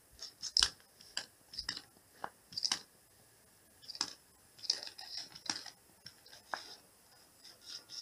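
Irregular light clicks, taps and scrapes as a cat paws a small plastic toy frog about on a wooden floor, the loudest click about half a second in.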